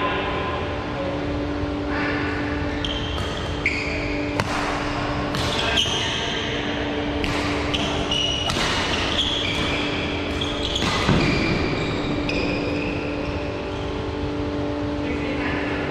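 Badminton rally: rackets striking the shuttlecock in sharp hits about a second or so apart, with court shoes squeaking briefly on the sports floor. A steady low hum runs underneath.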